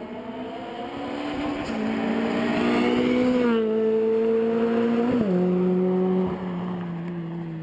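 2011 Honda Civic Si's four-cylinder engine through a Vibrant Street Power aftermarket exhaust, pulling hard through the gears. The revs climb and drop twice at upshifts, about three and a half and five seconds in, and the car eases off near the end.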